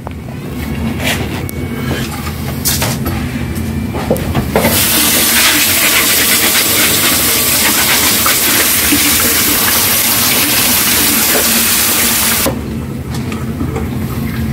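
Kitchen tap running hard into a stainless-steel sink, the stream splashing over stockfish in a metal strainer as it is rinsed. The water comes on about five seconds in and cuts off suddenly near the end, after a few light knocks and clinks at the start.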